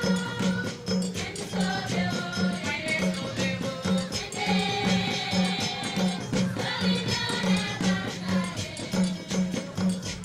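Church choir singing a Moba-language song in parts, with women's voices leading, over a steady low drum beat of about two to three strokes a second and a shaker or rattle.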